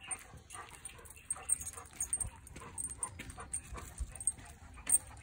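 Labrador panting as it pulls on the leash, with the metal chain leash clinking in many short irregular clicks and one sharper clink near the end.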